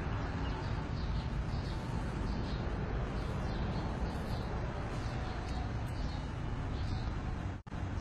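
Small birds chirping in short high notes, a couple a second, over a steady low rumble. The sound cuts out for an instant near the end.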